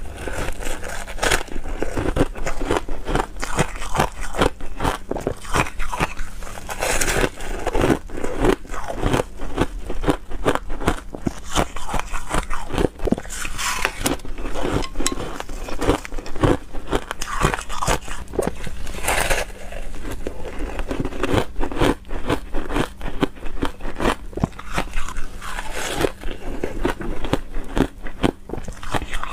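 Frozen juice ice being bitten and chewed: dense, rapid crunching and crackling, with a bigger crunch about every six to seven seconds.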